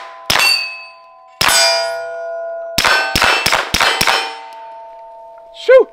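Suppressed pistol fired about seven times: two single shots, then a quick string of five. Hits on steel targets ring out with clear sustained tones that fade slowly. A brief loud sound that wavers in pitch comes near the end.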